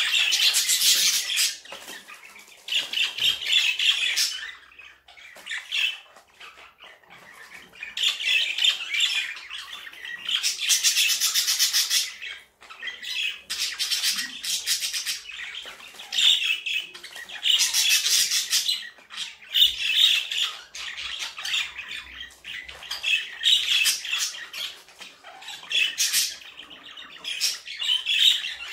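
Budgerigar chattering in bouts of a second or two: scratchy, fast clicking warble and squawks, with short lulls between bouts.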